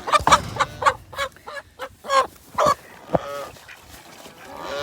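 Goose honking: a run of short, separate calls, about half a dozen, with a couple of sharp knocks among them.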